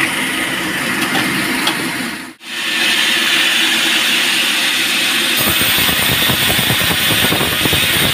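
Band sawmill running: a steady engine-like hum, then, after a brief drop-out about two seconds in, a loud hiss typical of the blade cutting through wood, turning rougher about five seconds in.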